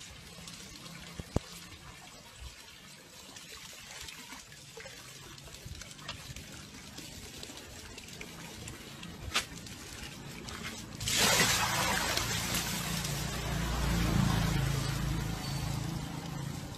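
Water pouring from a garden hose into a plastic tub in a thin, steady trickle; about eleven seconds in it turns to much louder splashing and sloshing as a dog moves about in the water-filled tub.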